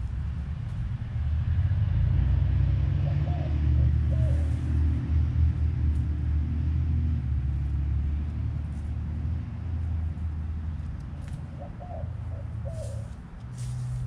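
Low engine rumble of a motor vehicle nearby, swelling about a second in and easing off toward the end.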